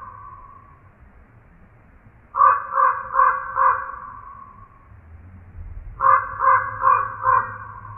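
Crow cawing in two runs of four or five quick caws, about three a second. The first run comes a little over two seconds in and the second about six seconds in, each trailing off with an echo.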